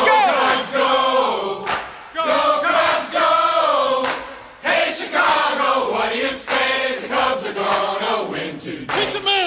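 A group of voices singing together, choir-like, with little or no instrumental backing; the phrases pause briefly about two and four and a half seconds in.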